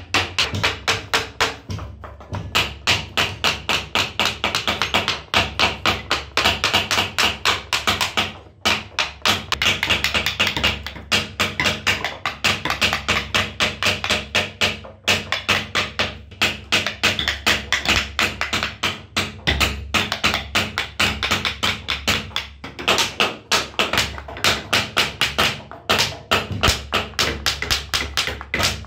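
Wooden mallet striking the handle of a carving chisel, driving it into a wooden panel during relief carving: rapid, steady tapping of several strikes a second, with a few short pauses.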